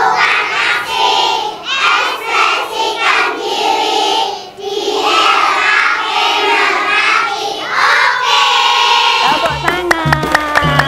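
A large group of young children chanting a slogan in unison, in phrases with short breaks, ending about nine seconds in. Background music comes in just after.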